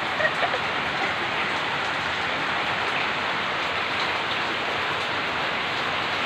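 Steady hiss of rain falling, with a few faint clicks near the start.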